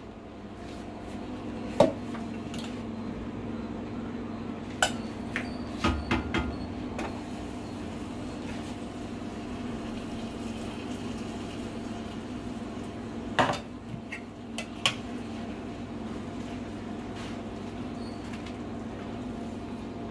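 Stainless steel utensils clinking and knocking against steel cooking vessels as mashed rice is scraped out of one pot and tipped into a pan: scattered sharp clinks, a cluster about five to six seconds in and another around thirteen to fifteen seconds, over a steady low hum.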